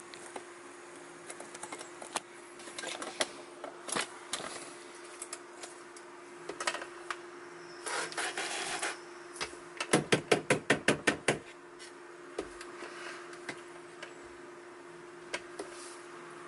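Scattered sharp taps and knocks, then a fast run of about ten loud raps around the middle, made to provoke a cobra coiled in its enclosure into moving. A steady low hum runs underneath.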